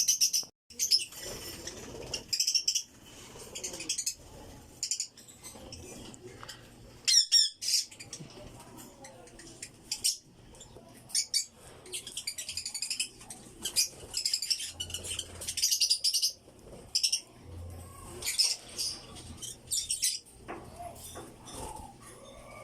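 African lovebirds calling: short shrill squawks and chirps again and again at irregular intervals, some with a rapid warbling flutter.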